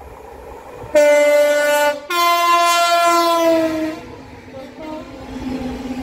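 Class 66 diesel locomotive's two-tone horn: a lower note for about a second, then a higher note held for nearly two seconds, falling slightly in pitch as the locomotive passes. After that comes the quieter rumble of the locomotive and car-carrier wagons rolling by.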